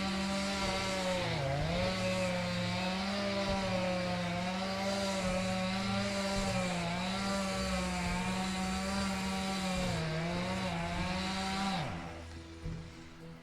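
Two-stroke chainsaw running at high throttle while cutting dead oak, its pitch dipping briefly several times as the chain loads up. Near the end the throttle is released and the engine's pitch drops away quickly.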